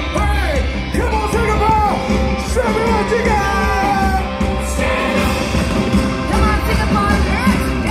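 Loud upbeat rock song with a lead singer, played over a stadium sound system, with a steady bass beat underneath.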